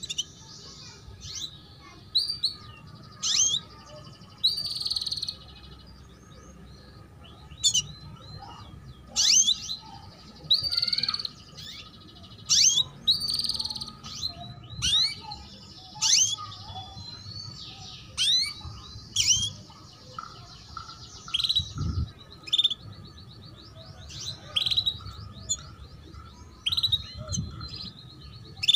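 Female canary calling with short, sharp 'cuit cuit' chirps, repeated at irregular intervals, some run together into brief buzzy trills.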